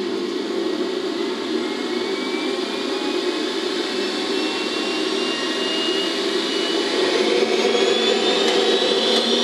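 Model jet turbine spinning without lighting, in its cool-down cycle after a failed start: a steady rushing whine whose pitch slowly climbs.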